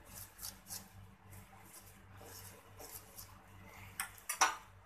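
Ghee being spread over a puran poli on a hot tawa: soft rubbing strokes of a utensil across the flatbread, then a few sharp clicks about four seconds in.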